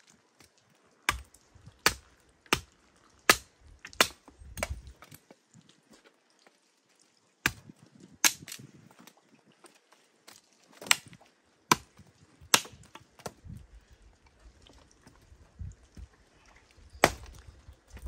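Hatchet chopping branches into firewood: five sharp strikes at a fairly even pace, a pause, then more blows at irregular intervals, about a dozen in all.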